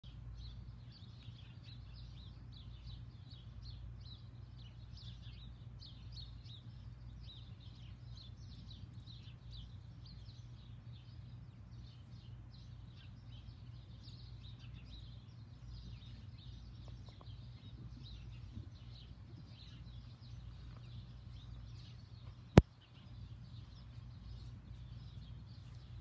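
A chorus of small birds chirping and tweeting without a break, many quick high chirps overlapping. A steady low hum runs underneath, and a single sharp click stands out near the end.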